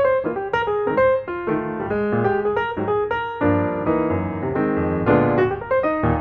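Piano music, a steady run of notes with chords in the lower register.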